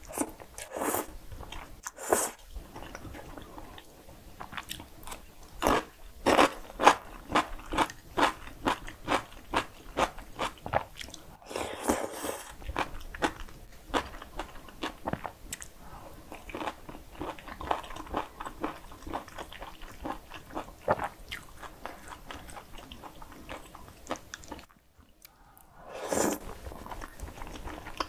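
A person eating cream-sauce pasta noodles and bacon close to the microphone: wet chewing and smacking clicks, at times about two a second, with a couple of longer noodle slurps.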